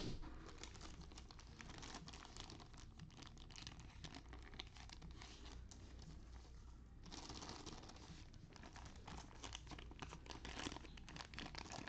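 Faint crinkling and rustling of thin plastic trading-card sleeves being handled and worked out of their pack, a little louder about seven seconds in.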